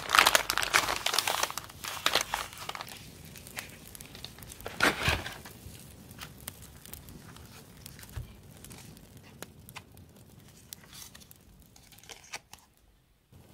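Kraft paper envelopes and their paper contents crinkling and rustling as they are handled and opened. The rustling is loudest over the first few seconds, with another loud burst about five seconds in, then gives way to softer scattered rustles and light taps as paper cards are sorted.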